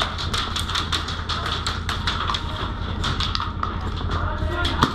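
Rapid, irregular taps and cracks of airsoft fire, BBs striking the plywood walls and doorframe around a pinned player, with a heavier cluster of hits near the end.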